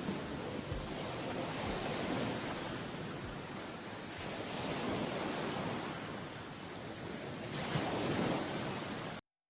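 Ocean surf: waves washing in and drawing back in swells every few seconds. It cuts off abruptly near the end.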